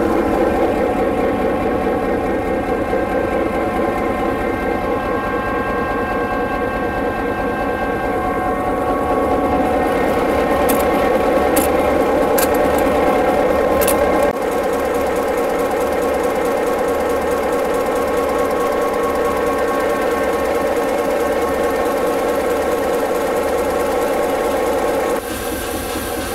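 EMD 16-cylinder diesel engine of a GP7U locomotive, rebuilt to GP38 standard, running steadily just after start-up. A few sharp clicks come about midway.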